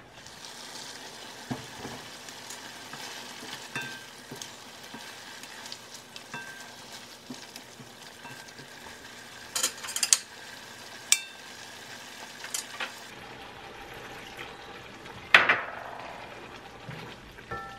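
Chicken and potato pieces sizzling in sauce in a wok while a plastic slotted spatula stirs them, clicking and scraping against the pan a few times, with one louder knock near the end.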